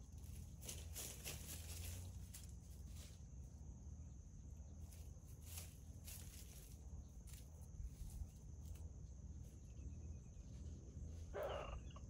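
Faint outdoor dawn ambience: a steady high-pitched insect drone with scattered faint ticks, and one short animal call near the end.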